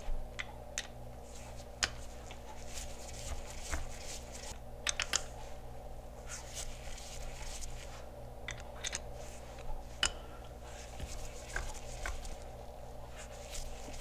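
Phillips screwdriver clicking and scraping against small screws as they are backed out of a metal latch-motor gear housing, with a steady low hum behind.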